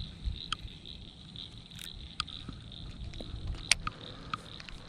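Steady insect buzz with a low wind rumble, broken by a few sharp clicks and knocks, the loudest about three quarters of the way through.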